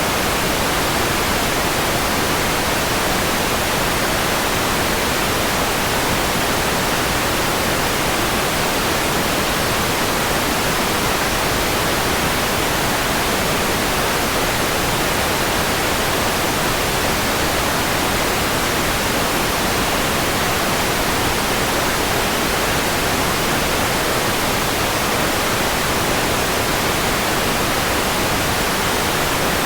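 Steady white noise: an even, unbroken hiss spread across all pitches, with no change in level.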